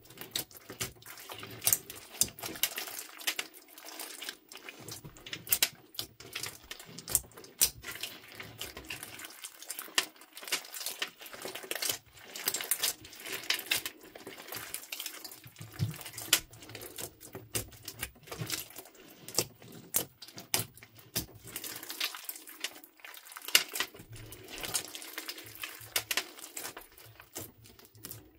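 Hands squishing and kneading a thick, sticky slime mixed with small beads, giving irregular wet squelches with many sharp sticky clicks and pops.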